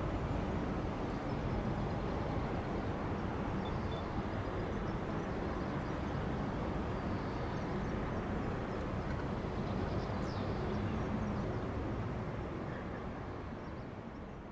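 Boeing 747-8 jet engines heard from the ground as a steady, deep rumble, fading away near the end.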